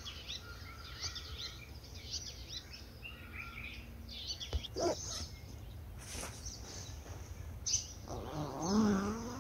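Wild birds chirping and calling in many short, high notes over a steady low background hum. Near the end a dog whines, its pitch sliding up and down.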